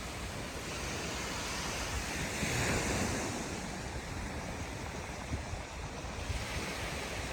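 Sea surf washing onto a sandy beach, one wave swelling to a peak about two and a half seconds in and then drawing back, with wind rumbling on the microphone.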